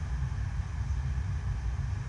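Water rushing continuously over an indoor artificial surf-wave machine: a steady low rumble with a hiss of spraying water on top.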